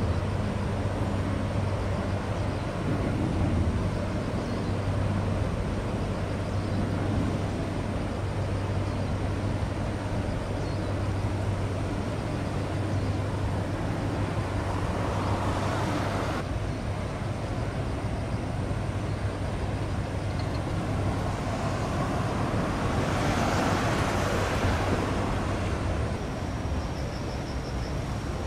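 Steady low drone of a passing container ship's engine, under a rushing haze of wind and water. The rushing swells twice, around the middle and again about three-quarters of the way through, and the drone fades near the end.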